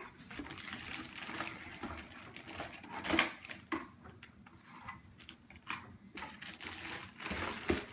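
A large cardboard box being opened and unpacked by hand: irregular rustling, scraping and tapping of cardboard and packing paper.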